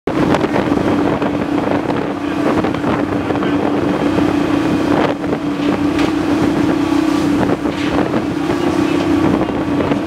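Rushing, splashing whitewater of big waves breaking along a moving boat's hull, over a steady engine drone, with wind buffeting the microphone.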